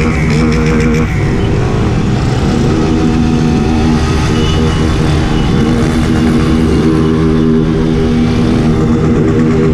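Motorcycle engine running at a steady cruising pace, its pitch dipping and rising again a few times as the throttle eases and picks up, with other motorcycles riding alongside.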